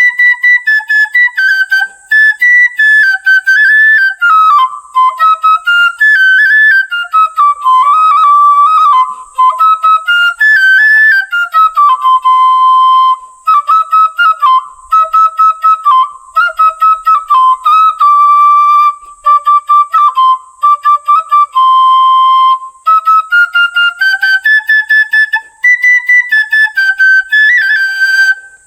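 Solo bansuri, an Indian bamboo flute, playing a melody of many short, separately tongued notes that wanders lower through the middle and climbs back up near the end.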